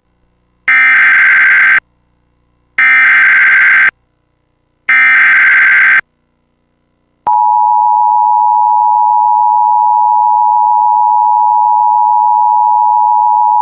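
Emergency Alert System tones: three one-second bursts of SAME header data, a buzzing digital warble, each followed by a second's pause. About seven seconds in, the steady two-tone EAS attention signal (853 and 960 Hz) begins and holds. This sequence opens a National Weather Service severe thunderstorm warning.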